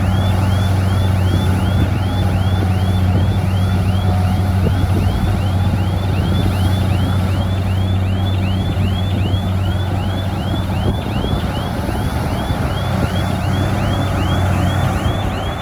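Heavy diesel earthmoving machinery running steadily with a constant low hum. A rapid high-pitched chirping repeats about three times a second over it without a break.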